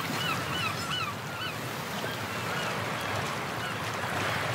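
Seabirds crying in a quick series of short rising-and-falling calls over a steady wash of surf. The calls come thick for about the first second and a half, then thin out.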